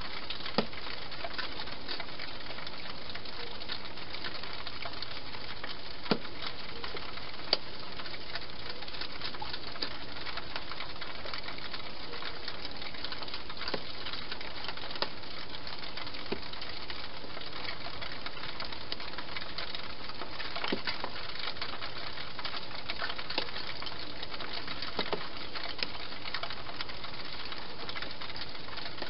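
Hedgehog eating from a bowl in a plastic feeding station: irregular sharp crunching clicks, over a steady hiss.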